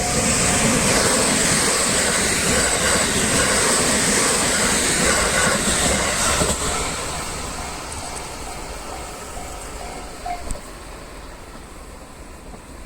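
A train passing over a level crossing, loud for about six and a half seconds and then fading away. The crossing's warning bell rings in a steady ding-ding rhythm under the fading train and stops about ten and a half seconds in.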